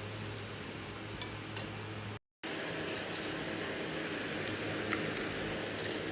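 Potato bhajiya frying in hot oil: a steady sizzle with a few light clicks. There is a brief cut to silence about two seconds in.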